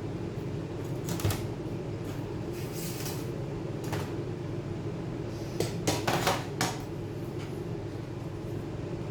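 Small hard parts and tools handled while taking apart a MacBook Pro: a few scattered clicks and light knocks, with a quick run of them about six seconds in, over a steady low hum.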